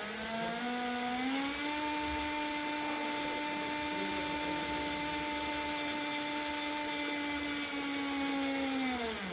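Brushed DC motors whining with a hiss as they speed up over the first second and a half, then running at a steady pitch. Near the end they slow and stop.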